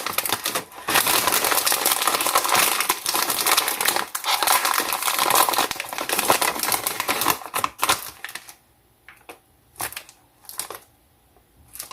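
Crinkly snack bag of Popcorners sour cream and onion chips being opened and handled, with dense rustling and crackling for about eight seconds, then a few separate sharp crinkles near the end.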